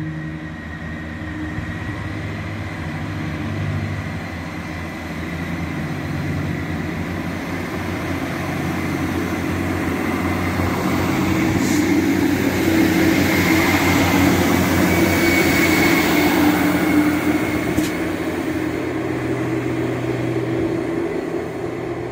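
ScotRail Class 158 diesel multiple unit departing under power, its underfloor diesel engines running steadily. The sound builds as the train draws near, is loudest just past the middle with a faint high whine, then eases as it pulls away.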